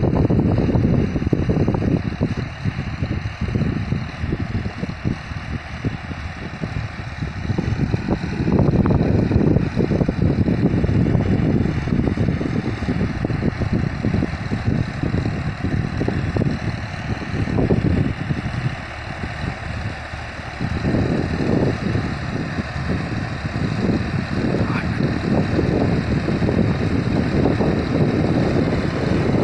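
John Deere 5405 tractor's diesel engine running steadily as the tractor pulls an implement across the field toward the listener.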